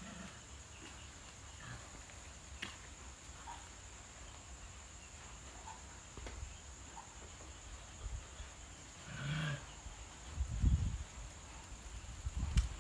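Faint night ambience with a steady high insect trill, a few light clicks, and a short animal call about nine seconds in; near the end come several low dull thuds.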